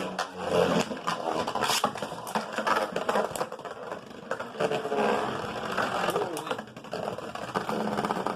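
Beyblade Burst spinning tops whirring and clashing in a plastic stadium, a continuous rattling scrape with many sharp hits.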